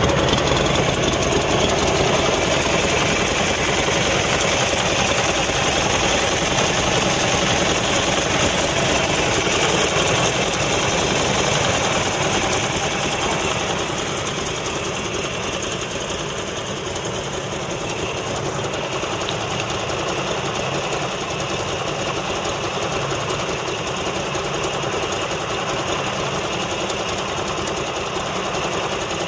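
Buell XB12SS Lightning's air-cooled V-twin engine idling steadily, a little quieter from about halfway through.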